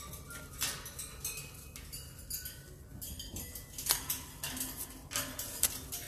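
A parrot moving about its wire cage: irregular metallic clicks and taps of beak and claws on the bars, with a sharper click about four seconds in.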